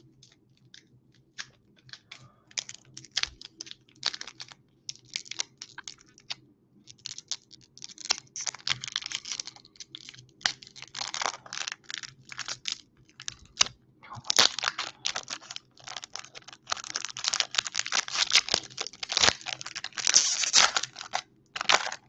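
Foil Pokémon booster pack wrapper crinkling and tearing as it is opened by hand, a quick crackle of sharp rustles that grows busier and louder about halfway through.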